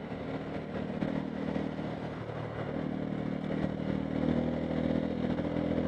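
Bajaj Pulsar N250's single-cylinder engine running under way, heard from the rider's position over wind and road noise, its level climbing gradually as the bike picks up.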